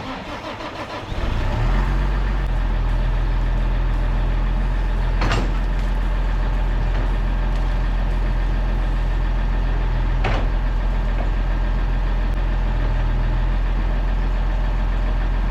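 Farm machinery running steadily: a low engine drone that comes up about a second in and holds, with an even hiss over it and two faint clicks.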